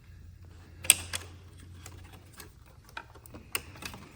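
Scattered small clicks and light knocks of plastic tabs and clips on motorcycle handlebar controls being pushed and worked loose by hand, the sharpest about a second in, over a faint low hum.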